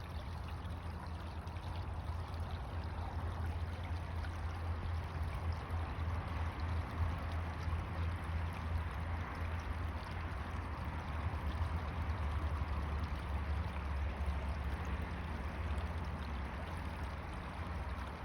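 Bayou creek water flowing steadily, an even rush of running water with a steady low rumble underneath.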